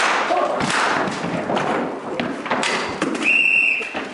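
A run of thumps and knocks, then a short, steady, high electronic beep about three seconds in.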